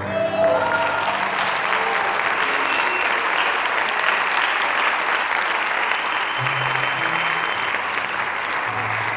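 Audience applauding steadily, with the last notes of a Mexican string ensemble of violins, guitars and harp dying away in the first second.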